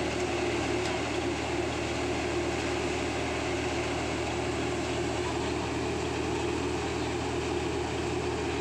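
Tractor-driven paddy thresher running steadily while threshing paddy, the tractor's engine hum and the thresher's drum together as one even, unbroken machine sound.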